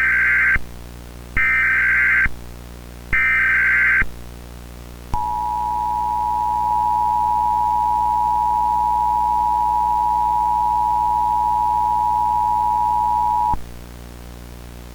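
Three short bursts of Emergency Alert System digital SAME data tones, about a second apart, then the two-tone EAS attention signal held steadily for about eight seconds and cut off abruptly: the standard start of an EAS alert message.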